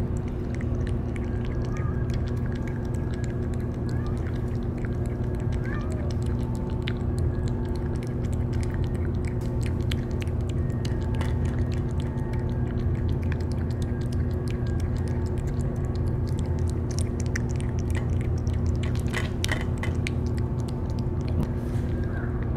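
A cat chewing and lapping wet food from a metal dish close to the microphone: a continuous run of small wet, irregular clicks and smacks, over a steady low background rumble.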